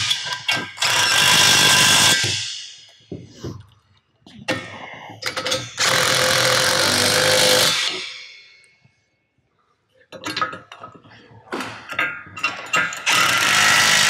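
Cordless impact driver with a deep socket running nuts down onto bolts on a steel bracket, in three bursts of hammering lasting a few seconds each: from the start, from about four and a half seconds in, and again near the end. Between the bursts come short metallic clinks as the tool is moved from bolt to bolt.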